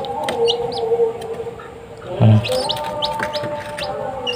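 Newly hatched kampung chicks peeping: many short, high cheeps coming one after another.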